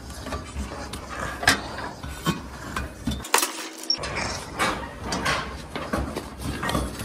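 Boots stepping on the rungs of a metal scaffold ladder while climbing down it, giving irregular metal knocks and clinks, about one or two a second.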